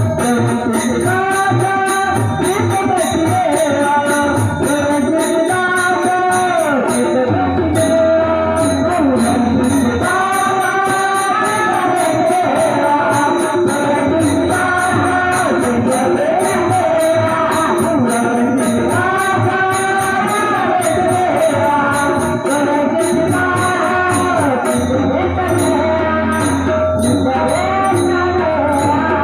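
Marathi abhang bhajan music: a stepping melody over steady, rapid jingling of small hand cymbals and low drum beats.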